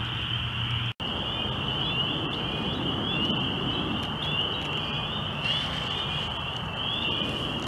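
A chorus of frogs calling without a break, a dense, high-pitched, pulsing call over a low rustling background. The sound drops out for an instant about a second in.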